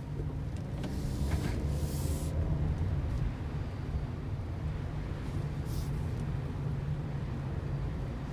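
Toyota Sienta on the move: a steady low rumble of engine and road, with brief hissing swells about two seconds in and again near six seconds.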